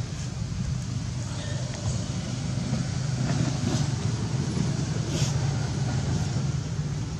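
A steady low rumble, with a few faint short clicks a little past the middle.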